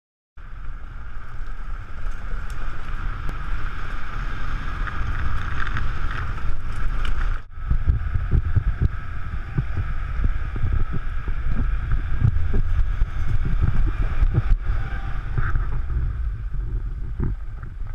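Open off-road vehicle driving on a dirt track, its engine running steadily under heavy wind buffeting on the microphone. The sound drops out briefly about seven and a half seconds in, then resumes.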